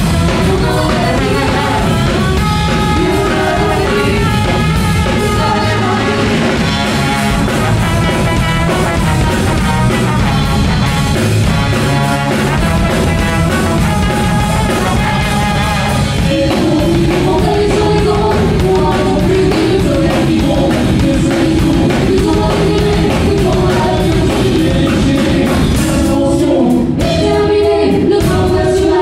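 Live band music: trumpet and trombone playing over electric guitars and a drum kit, with a woman singing.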